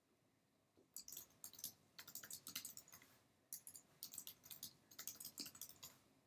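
Typing on a computer keyboard: quick runs of key clicks starting about a second in, with a brief pause about halfway through.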